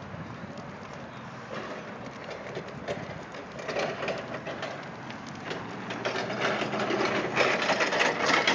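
A burning pile of pallets being hosed down: steam hissing and crackling, getting louder over the last few seconds.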